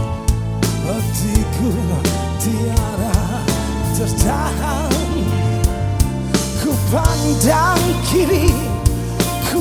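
Rock band playing live, drums and bass under a male lead singer's voice, whose long held notes waver in pitch.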